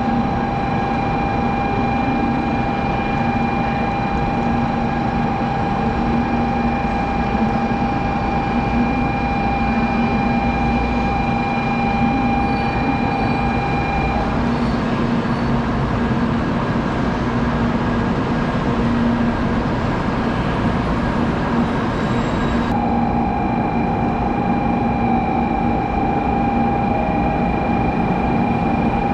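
Shinkansen bullet trains pulling into a station platform: a steady rush and rumble of the train rolling in, with a few steady tones over it. About two-thirds of the way through, the sound changes abruptly as a second train approaches.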